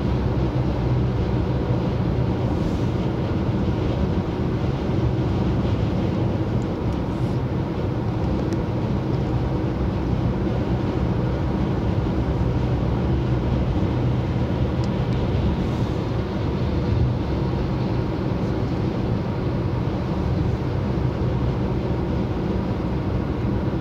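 Steady road noise heard inside a car's cabin while it cruises at highway speed: an even tyre-and-engine drone with a low hum, unchanging throughout.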